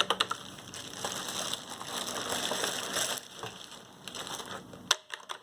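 The last few clicks of Cherry MX Purple mechanical key switches on a split keyboard, then several seconds of irregular crinkling and rubbing as the keyboard is handled.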